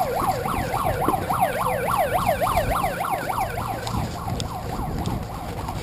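Electronic siren in a fast yelp, its pitch sweeping up and down about six times a second and fading away about two-thirds of the way through: the signal for the start of the game.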